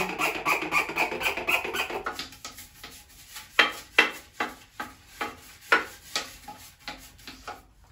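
Scrubbing brush worked over a bathroom surface: a quick continuous rasp for about two seconds, then separate scrubbing strokes, about one or two a second.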